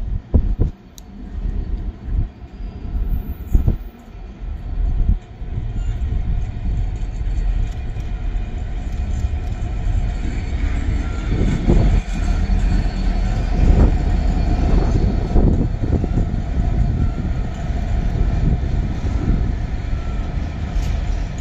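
Class 69 diesel-electric locomotive, with its EMD 12-cylinder two-stroke engine, passing at the head of a freight train: a deep engine rumble that grows louder about five seconds in as it draws near and stays loud as the locomotive and wagons roll by, with the wagons' wheels clattering over the rail joints.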